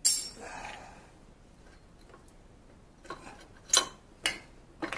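A sharp knock at the start, then four sharp metallic clicks about half a second apart near the end: small metal motorcycle parts and tools being handled and set down on a concrete floor.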